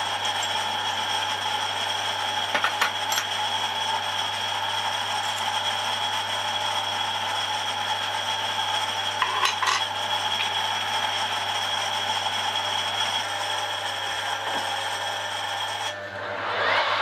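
Chuck key working the three-jaw scroll chuck of a Harrison 140 lathe, with a few sharp metallic clicks and scrapes as the jaws are tightened onto the part, over a steady workshop hum. Near the end the lathe starts up, its pitch rising as the spindle comes up to speed.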